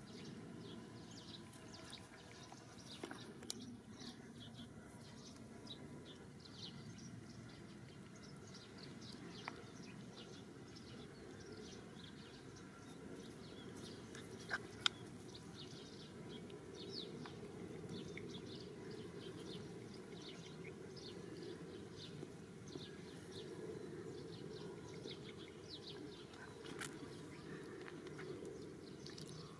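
Faint outdoor ambience of many short bird chirps over a low, steady background noise, with a few sharp clicks, the loudest a pair about fifteen seconds in.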